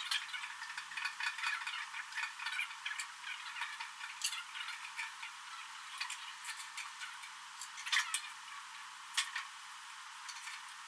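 Scattered light clicks and clinks over a steady hiss, with a faint low hum underneath.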